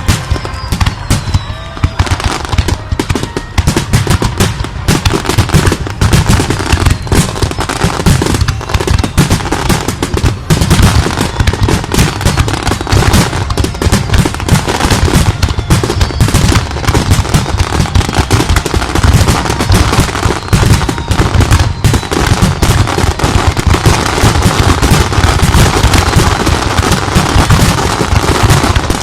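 Fireworks finale barrage: shells bursting in rapid, overlapping succession, a dense unbroken run of booms and crackles.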